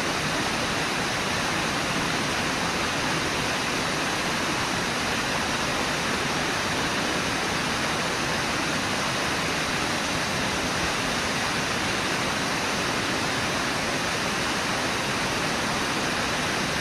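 Steady rush of river water pouring over Brooks Falls, an even roar with no break or change.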